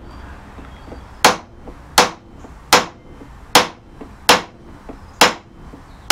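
Hammer striking a mild-steel background punch with filed teeth into a carved wooden panel, texturing the recessed background of the carving. A steady series of hard whacks, one about every three-quarters of a second, starting about a second in.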